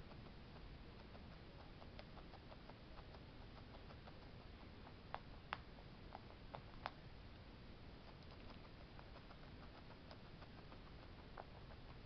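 Guinea pig eating grapes from a glass bowl: a faint, steady scatter of small chewing and nibbling clicks, with a few sharper clicks about five to seven seconds in.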